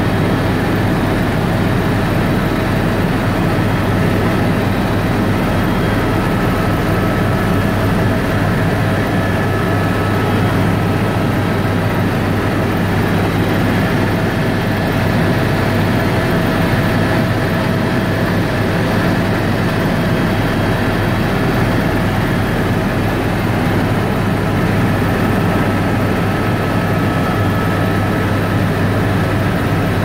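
Small aircraft's engine droning steadily, heard from inside the cabin: a loud constant low hum with a few thin steady tones above it.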